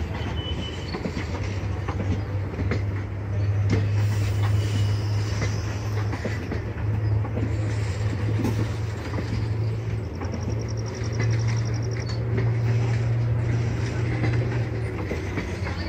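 Passenger train coaches rolling past as the train departs, their wheels clicking over rail joints above a steady low rumble.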